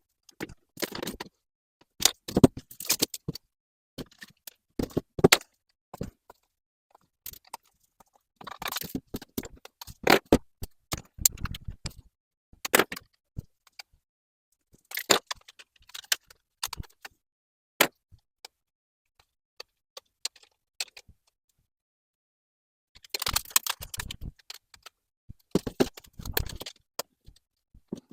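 Small metal parts and a computer's casing being handled while it is taken apart: irregular clicks, scrapes and rattles in short bursts, with dead silence between them.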